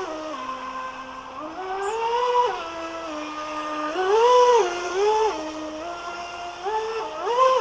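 Electric motor and water-jet impeller of a 3D-printed radio-controlled jet boat whining, its pitch climbing and dropping several times as the boat speeds up and turns.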